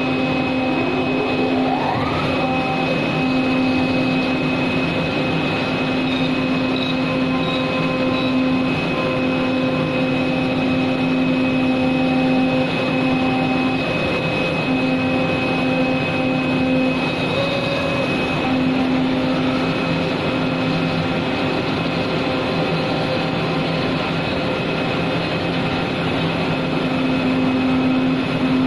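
CNC knife cutting machine running: a steady mechanical hum with a constant low tone that drops out briefly a few times, and a short rising whine about two seconds in.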